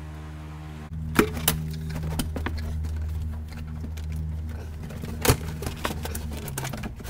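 Scattered knocks and clatter of cabin trim parts being handled by hand, with sharp knocks about a second in and again past five seconds, over a steady low hum.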